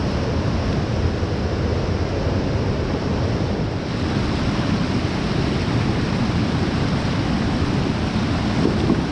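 Steady, loud rushing noise of the outdoors, heaviest in the low end, with no distinct call or event.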